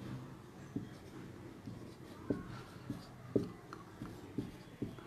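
Marker pen writing on a whiteboard: a string of faint short taps and scrapes as the strokes are drawn, several a second apart.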